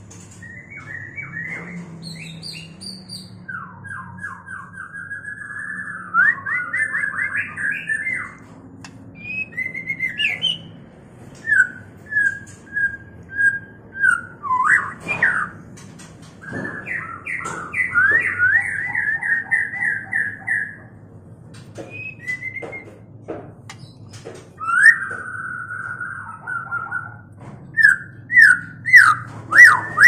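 White-rumped shamas of a courting pair singing and calling: loud whistled phrases, several runs of rapid repeated notes, and sharp single notes in between.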